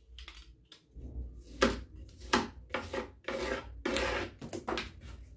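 Utility knife cutting a strip of 5 mm EVA foam along a wooden straightedge: a run of about seven drawn cuts, starting about a second and a half in.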